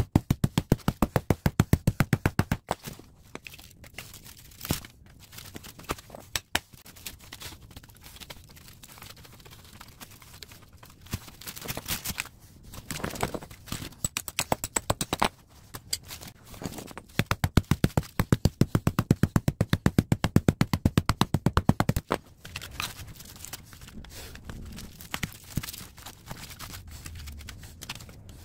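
Hammer rapidly tapping a screwdriver driven into a scrap copper-and-aluminium radiator to break the fins away from the copper tubes, in three quick bursts of blows, with quieter metal knocks and scraping in between.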